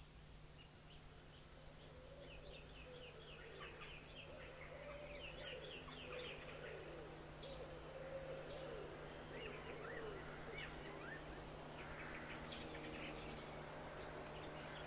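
Birds chirping and twittering, fading in over the first few seconds and growing busier, with lower wavering calls beneath the high chirps and a steady low hum throughout.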